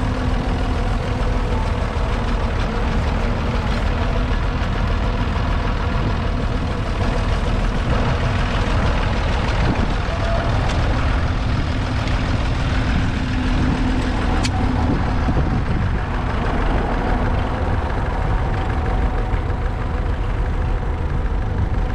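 Massey Ferguson 135's 2.5-litre three-cylinder Perkins diesel engine running steadily.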